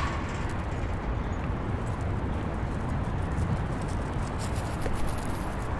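Outdoor city-park ambience: a steady low rumble of distant downtown traffic, with a few faint light clicks and taps.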